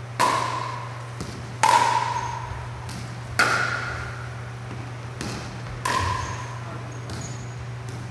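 Pickleball paddles striking a plastic ball in a rally: four sharp pops, each with a short ring, spaced about one and a half to two and a half seconds apart, with fainter taps between them, over a steady low hum.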